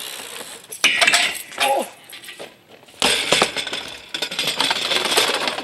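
BMX bike hitting a metal skatepark rail with sharp metal clanks, then a rough scrape lasting a couple of seconds as the bike grinds along the rail.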